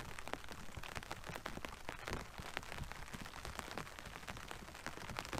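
Rain falling on the canvas of a fishing brolly shelter: many light, irregular taps of drops over a low, steady rumble.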